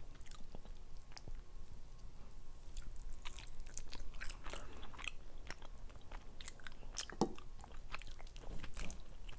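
Close-miked sounds of a person eating rotisserie chicken: biting and chewing the meat, with fingers pulling it apart, heard as many small irregular clicks and smacks.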